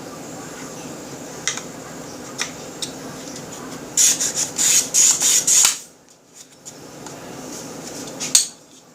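Plastic and metal parts of a Smith & Wesson M&P FPC carbine clicking and rattling as they are handled and fitted together during a field strip. A few scattered clicks, then a quick run of loud clicks and rattles about four to six seconds in, and one sharp click near the end.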